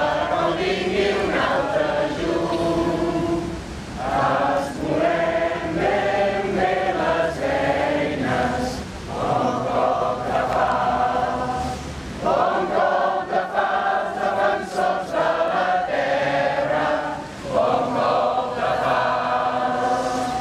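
Many voices singing a song together in unison, in long held phrases with short breaks between them.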